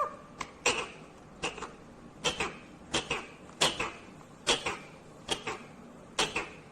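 Indian ringneck parakeet giving a string of short, sharp calls, a little more than one a second, each dropping quickly in pitch.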